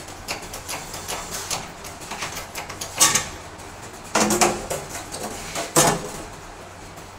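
Metal knocks and clanks from working an electric motor in a bench drill press with a steel bar: a few light taps, then three louder knocks spaced a second or so apart.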